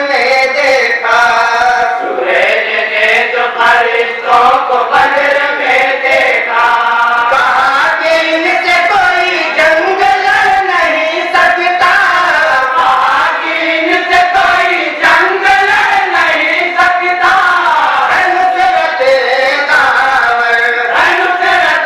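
A group of young men singing an Islamic devotional song in unison into a microphone, amplified, the singing continuous with bending, held notes.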